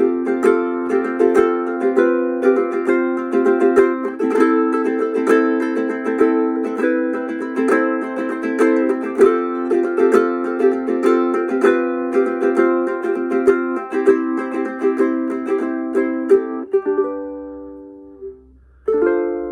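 Spruce-top concert ukulele strummed in steady rhythmic chords. About three-quarters of the way through, a last chord is left ringing and fades slowly, showing the long sustain of the thin top. A new strum starts just before the end.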